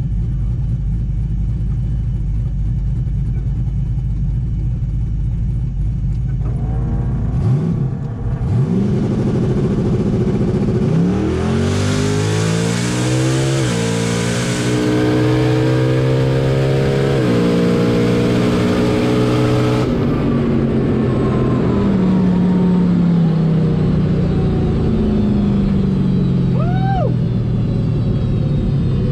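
Turbocharged LS V8 in an S10 drag truck making a quarter-mile pass. It runs at a low idle, then launches and climbs hard at full throttle through two gear shifts for about nine seconds. The driver lifts off and the engine note falls away as the truck coasts down.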